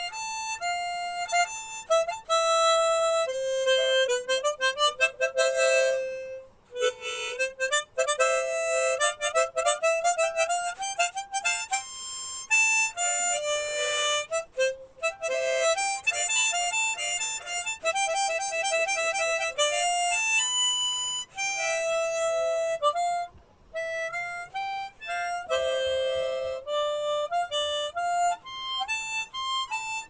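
Background music: a solo melody played in quick runs of notes, with short pauses about seven seconds in and again near the end.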